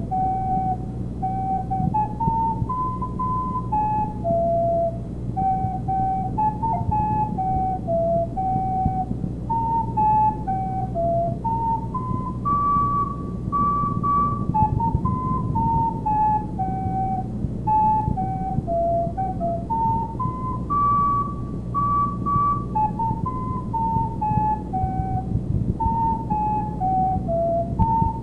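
Solo recorder playing a stepwise melody of short, separate notes, over a steady low hum.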